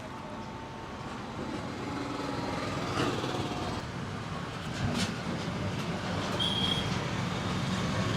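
Roadside traffic: a vehicle's rumble growing steadily louder, with two sharp clicks about three and five seconds in.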